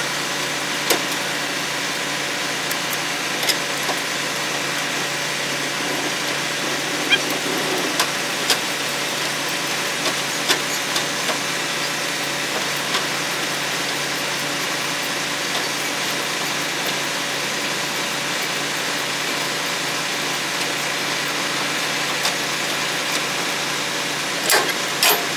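Semi-truck diesel engine idling steadily, with a few scattered light metallic clicks and knocks.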